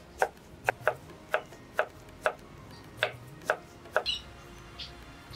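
Knife chopping fire-roasted banana flower into thin slices: sharp, even strokes about two a second, stopping about four seconds in. A few short bird chirps follow near the end.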